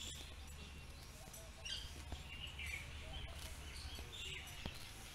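Birds chirping in short, scattered calls with quick rises and falls in pitch, over a steady low outdoor rumble.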